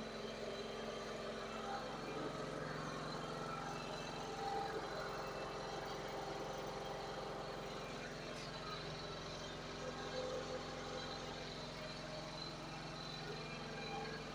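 Engine of a generator running steadily: an even, unbroken low hum.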